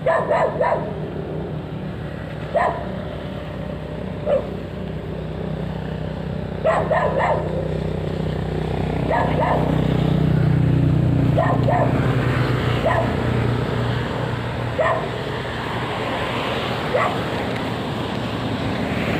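A dog barking in short, irregular barks a second or few apart, over a steady low engine drone that grows louder about halfway through.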